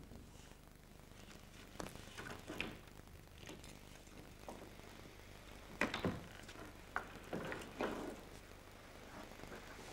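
Faint scattered knocks, scrapes and rustles of a person climbing over a stage wall, hands and body pressing and sliding on the set. A few sharper knocks come about six, seven and eight seconds in, over a low steady hum.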